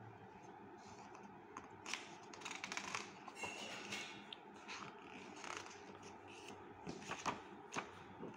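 Pages of a hardcover picture book turned by hand: several soft paper swishes and rustles, with a few sharp clicks near the end.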